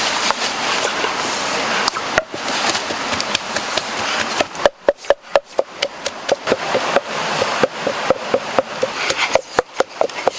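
Wooden pestle pounding chilies in a wooden mortar: a run of sharp wooden knocks, about three a second, starting about halfway through. Before the knocks there is a steady hiss of background noise.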